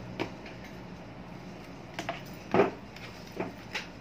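Electric-fan parts being handled and set down on a workbench: a few short knocks and clacks, the loudest about two and a half seconds in.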